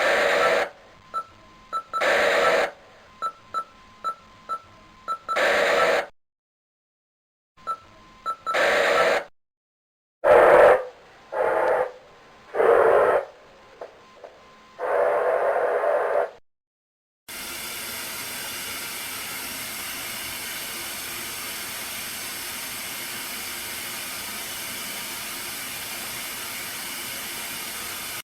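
Electronic static: a run of short bursts of static broken by gaps and small repeated beeps, then, a little past the middle, a steady, unbroken hiss of TV static.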